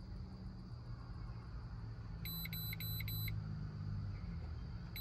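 A handheld OBD2 scan tool beeping as the stored misfire code is cleared: four quick high-pitched electronic beeps about two seconds in, then one more near the end, over a low steady hum.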